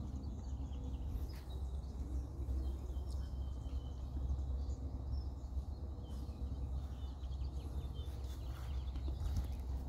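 Outdoor park ambience: a steady low rumble with faint bird chirps now and then.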